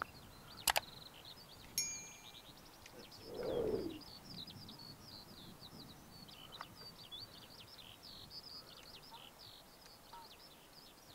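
Birds singing, many short high chirps one after another. A sharp click comes less than a second in and a short beep near two seconds, and a soft low swell of about a second, the loudest moment, comes a few seconds in.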